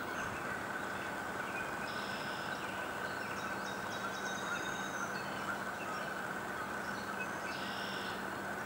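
Steady outdoor background noise with no clear events, and faint high bird chirps a few times.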